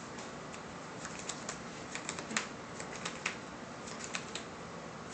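Sleeved Yu-Gi-Oh! trading cards being handled and shuffled: a run of irregular light clicks and snaps, starting about a second in.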